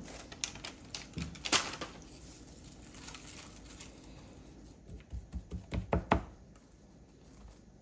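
Kitchen clatter while kimbap is being made: scattered light taps and clicks, one sharper click about a second and a half in, then a quick run of about six knocks near the end.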